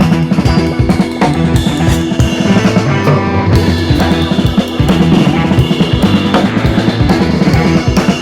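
Background music with a steady drum-kit beat: kick, snare and rimshot over sustained instruments.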